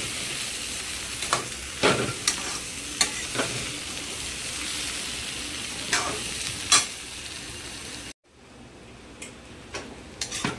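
Boiled potatoes and spices frying in oil in a pan, a steady sizzle broken by a spoon scraping and knocking against the pan as they are stirred, several strokes in the first seven seconds. Just after eight seconds the sizzle cuts abruptly down to a much fainter level.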